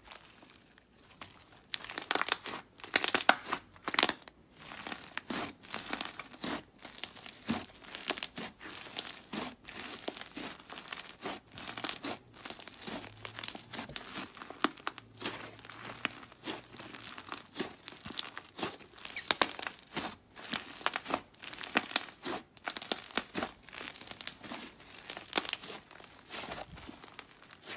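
Thick clay slime squeezed, folded and stretched by hand, giving dense, irregular crackling and small pops, starting about two seconds in.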